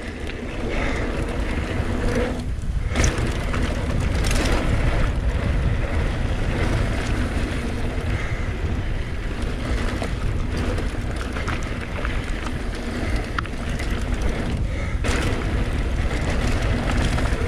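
Mountain bike descending a dirt trail: wind buffeting the action-camera microphone over tyre rumble, with scattered knocks and rattles from the bike over bumps. The noise dips briefly twice, about two and a half seconds in and again after about fifteen seconds.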